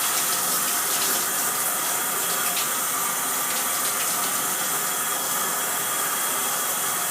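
Shower head running on low water pressure: a steady hiss of water spraying. It is a soft spray with not a lot of velocity.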